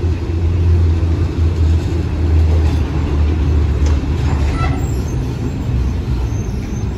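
Diesel passenger train pulling into a station, its engine running with a steady low hum. A brief faint high squeal, like brakes, comes about four and a half seconds in.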